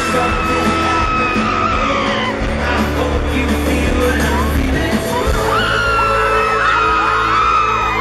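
Live pop-band music heard through a loud crowd, with many fans screaming and singing along in high voices over it.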